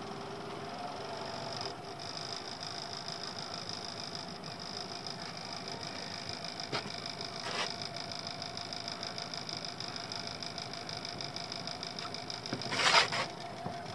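Small Honda outboard motor running steadily, with a brief louder rush of noise about a second before the end.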